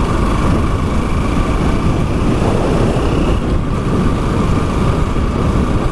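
A motorcycle under way, its steady engine drone buried under heavy wind buffeting on the microphone.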